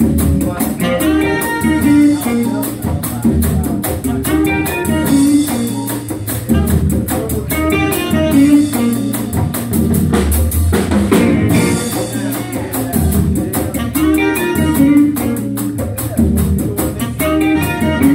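Small jazz band playing live: electric guitar, saxophone and keyboard over a drum kit keeping a steady beat with cymbals.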